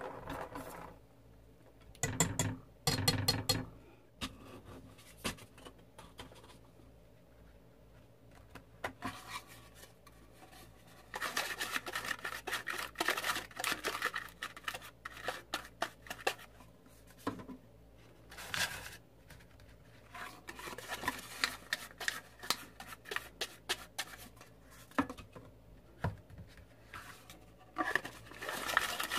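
A wire whisk beats batter in a stainless steel bowl, clattering against the metal in short bursts. Then a silicone pastry brush rubs and scratches around the inside of paper cupcake cups, greasing them in repeated strokes.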